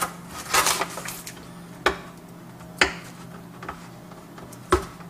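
Masking tape being peeled off the edge of a freshly painted plastic car grille: a rasping rip in the first second, then three sharp clicks spaced through the rest, over a steady low hum.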